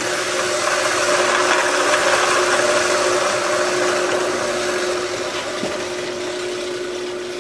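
Treadmill DC motor belted to a 4x6 metal-cutting bandsaw, starting up suddenly and running at a slow speed. It makes a steady hum with a broad whirr from the belts, pulleys and saw drive, easing slightly over the last couple of seconds.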